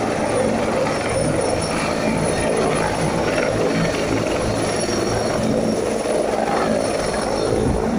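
Helicopter rotor and engine running loudly and steadily: a dense rush of noise over a low, even drone.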